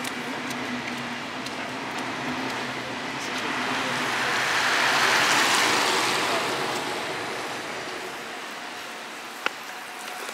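A vehicle passing on wet asphalt: tyre hiss swells to a peak about five seconds in and fades away, over steady street traffic noise. A single sharp click sounds near the end.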